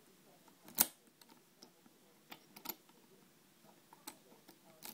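Brass key clicking in an EVVA oval lock cylinder as it is pushed in, turned and drawn out: a handful of sharp, scattered metallic clicks, the loudest about a second in.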